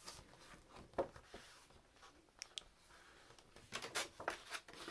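Paper rustling as a sketchbook page is turned by hand, a quick run of soft rustles near the end, after a few faint handling ticks.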